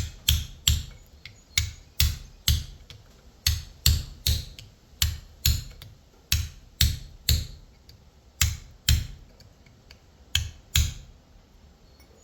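Hammer striking metal over and over, about two blows a second with a couple of short breaks, stopping about a second before the end.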